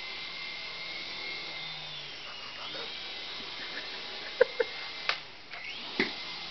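Small electric RC helicopter's motor and rotor whining steadily, its pitch dipping and rising again a couple of seconds in as the throttle changes. A few short clicks sound near the end.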